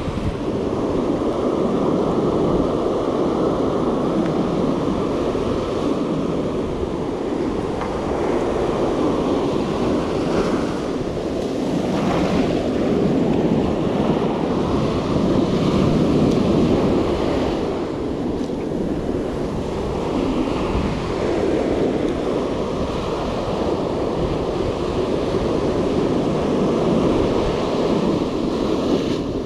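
Ocean surf breaking and washing up the sand close by, a continuous rush that swells and eases with the waves.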